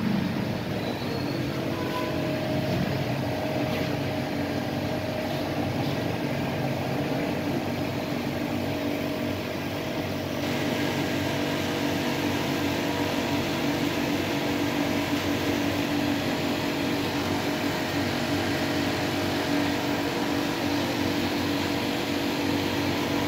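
A steady mechanical hum of a motor or machine running, with a few constant tones over a noisy background; its character shifts slightly about ten seconds in.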